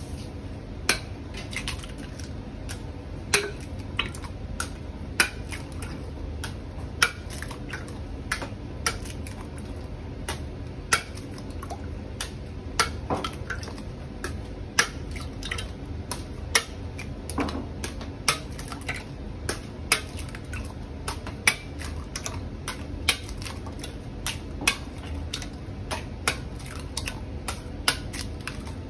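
Eggs being cracked one after another against the rim of a large metal tin can: a sharp crack-and-clink about every one and a half to two seconds, each followed by the egg dropping wetly into the pooled eggs. A low steady hum runs underneath.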